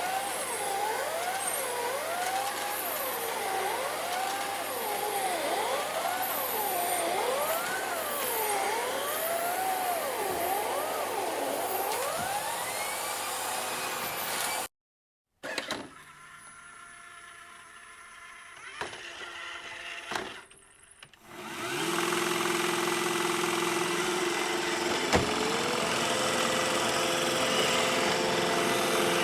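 Emergency vehicle sirens wailing over traffic noise, their pitch sweeping up and down, until they cut off suddenly about halfway through. After a brief silence and a quieter low hum, a vacuum cleaner's motor starts, its whine climbing in pitch and then running steadily.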